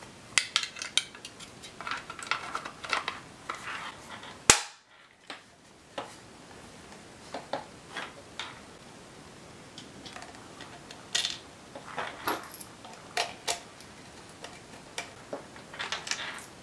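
Scattered clicks and knocks of a hard plastic shot-timer case being handled and fitted back together, with one sharp, loud click about four and a half seconds in.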